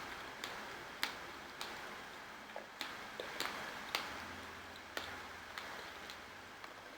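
Wet clicking mouth sounds of someone chewing berries: soft, irregular sharp clicks, one or two a second.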